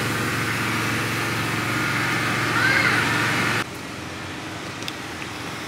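Steady machine hum with a rushing noise, dropping suddenly to a lower level about three and a half seconds in.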